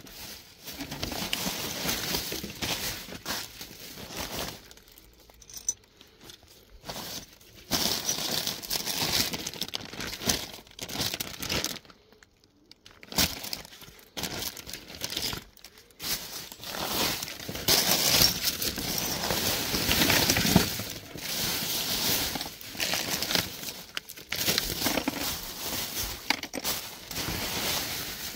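Plastic carrier bags crinkling and rustling as rubbish is rummaged through by hand, in irregular bursts with a few short pauses.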